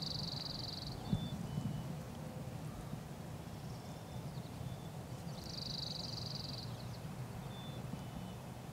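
A small songbird singing a high, rapid trill about a second long, repeated about five seconds later, with a few faint thin call notes in between.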